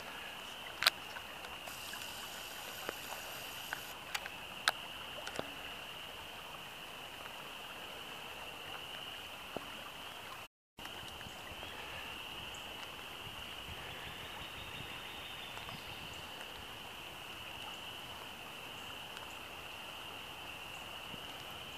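Rain-swollen woodland creek running steadily, a constant rushing hiss, with a few sharp clicks in the first five seconds.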